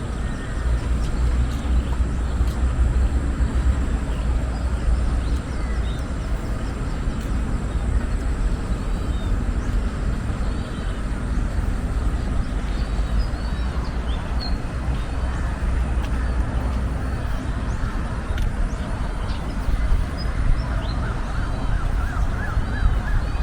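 Outdoor park ambience: a steady low rumble with scattered bird chirps through it, and a quick run of rising chirps near the end.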